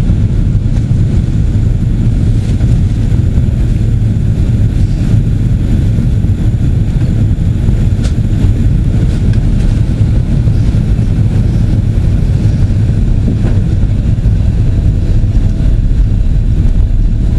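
Steady, loud low rumble of a Boeing 777-200's engines and airflow on its approach to land.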